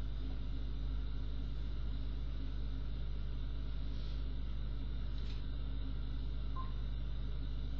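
A steady low hum, with faint brief rustles of tarot cards being handled about four and five seconds in.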